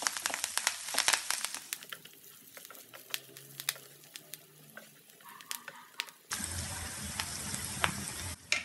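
Tempering of curry leaves, garlic, onion, dried red chillies and mustard seeds sizzling in hot oil in a nonstick pan as a wooden spatula stirs it, with many sharp crackles and clicks. The sizzle drops quieter for a few seconds, then comes back as a steady hiss about six seconds in.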